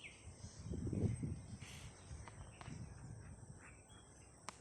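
Quiet outdoor background with a soft low rumble about a second in and a single sharp click near the end.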